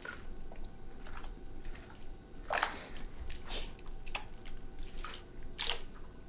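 Soft, wet kissing sounds: several short lip smacks, louder and closer together in the second half.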